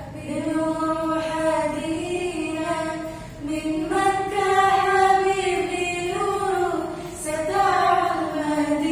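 Two girls singing an Arabic devotional nasheed in praise of the Prophet Muhammad, holding long notes that rise and fall slowly.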